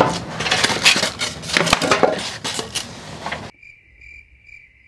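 Paper instruction sheets rustling and thin metal cabinet panels clattering as they are handled, with sharp knocks. About three and a half seconds in the sound cuts off abruptly to a quieter, steady high trill of crickets.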